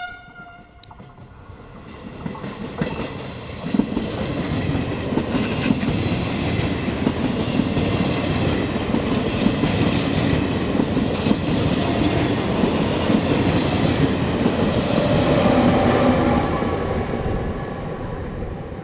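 Regional passenger train pulling out and passing close by, its coach wheels clattering over the rail joints. The rumble builds over the first few seconds, holds with scattered clacks, and fades near the end as the last coach goes by.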